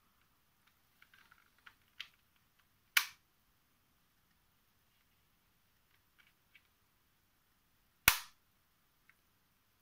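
Pieces of a hand-held shape-shifting puzzle cube being folded into new shapes. Faint ticks and rustles come from the pieces and fingers, with a smaller snap about two seconds in and two sharp, loud snaps, about three seconds in and near the end, as sections click together.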